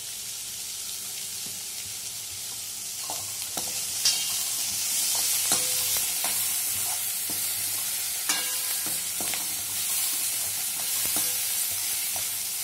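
Diced carrots and green beans sizzling in oil in a stainless-steel kadai while a slotted steel spatula stirs them, scraping and clinking irregularly against the pan. The sizzle grows louder about five seconds in.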